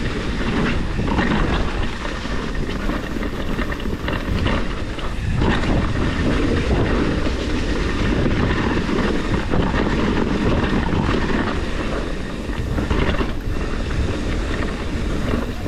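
Mountain bike riding along a dirt trail: steady tyre and wind noise with the bike rattling and clattering over the bumps.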